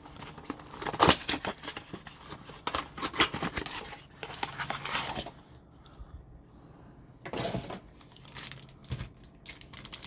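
Plastic wrapping of a trading-card blaster box and its card packs crinkling and tearing as it is opened by hand, in two spells with a short quiet gap about halfway through.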